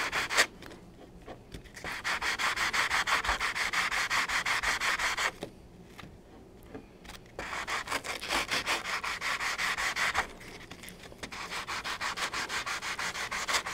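Abrasive track-cleaner block scrubbed rapidly back and forth along the rails of HO scale Atlas flex track, about six strokes a second, in three bouts with short pauses between. It is smoothing down rough solder on a freshly soldered rail joint.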